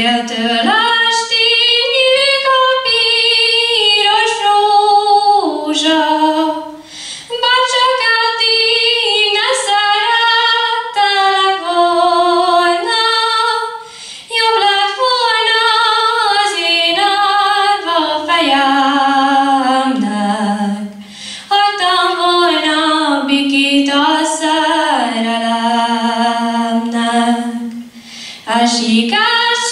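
A girl singing a Hungarian folk song solo and unaccompanied into a microphone, in long phrases of about seven seconds with short breaths between.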